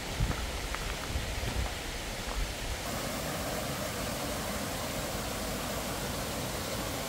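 Footsteps on a gravel track, about one every half to one second. About three seconds in they give way to the steady rush of a small mountain stream running over rocks.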